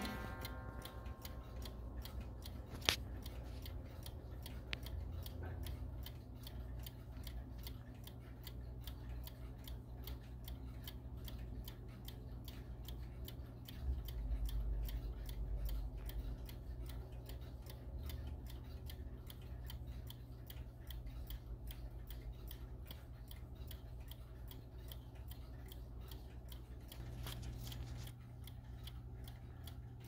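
Mechanical clock movement, a Franz Hermle chime movement, ticking steadily with an even beat. One sharper click comes about three seconds in.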